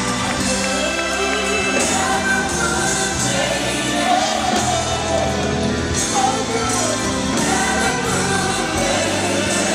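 Gospel choir singing with instrumental accompaniment, a steady bass under the voices.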